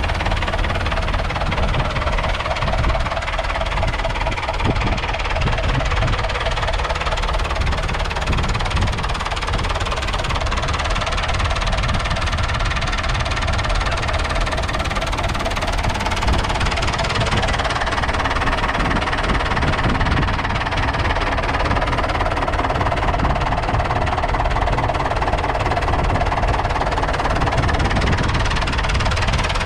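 1981 David Brown Case 996 tractor's 3.6-litre four-cylinder diesel engine idling steadily.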